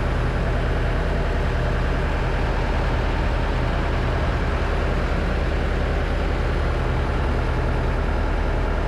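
Fishing boat's engine running steadily, a constant low drone that does not change.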